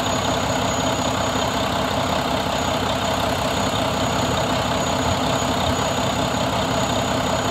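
2020 Mack MP8 13-litre inline-six diesel engine idling steadily, with a thin high whine running over it.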